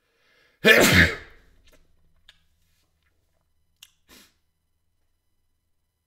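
A person sneezing once, loudly, about a second in, followed by a few faint clicks.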